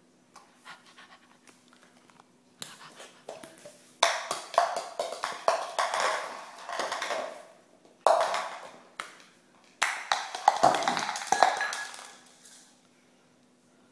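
A dog's cup being knocked and pushed about on a tiled floor, clattering and scraping with a slight ring. A few light taps come first, then three loud bouts of clatter, the last ending about two seconds before the end.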